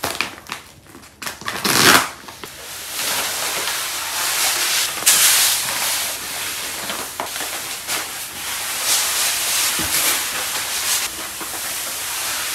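Meowtimes granular cat litter pouring out of a bag onto a heap of litter, a steady hissing rush of falling grains. In the first two seconds the bag crinkles and rustles as it is picked up and tipped.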